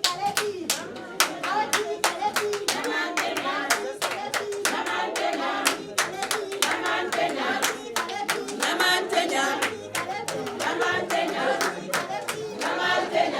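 A group of people singing together to steady hand clapping, the claps coming a few times a second.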